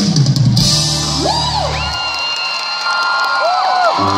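Live pop band playing the close of a song: a cymbal crash about half a second in, then held chords with the bass dropping out and coming back near the end, while the crowd whoops and cheers.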